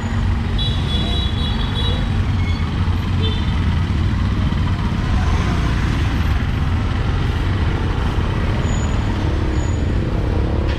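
Street traffic: vehicle engines running with a steady low rumble and the noise of passing traffic, with a brief high-pitched tone about a second in.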